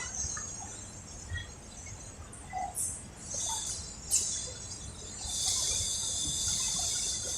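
High, steady chirring of crickets or similar insects that breaks off for a few seconds and then resumes, with faint small clicks from handling sewing machine parts. Two short, sharp high squeaks come in the break, about three and four seconds in; the second is the loudest sound.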